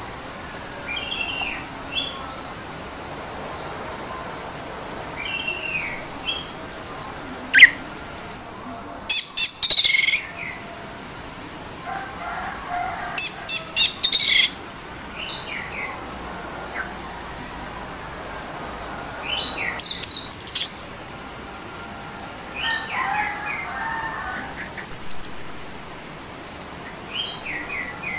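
Orange-headed thrush (anis merah) singing with a rough, harsh voice: short whistled notes broken by about five loud, rasping bursts, over a steady high hiss.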